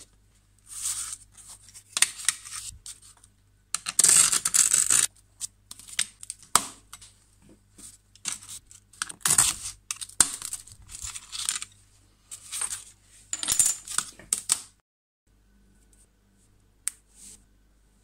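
Glass cutter scoring a sheet of textured glass, a series of scratchy, hissing strokes each lasting about a second, mixed with sharp clicks and clinks of glass. The strokes stop about fifteen seconds in, leaving only a couple of faint clicks.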